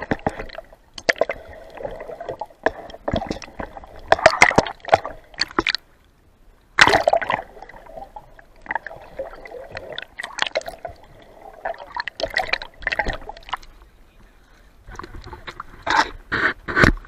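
Gurgling and sloshing of water, muffled through an action camera's microphone held underwater, with irregular knocks and splashes.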